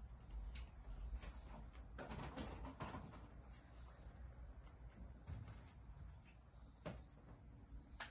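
Steady high-pitched trilling of crickets, with a few faint soft ticks and scuffs from a cat licking its lips and moving at its food bowl.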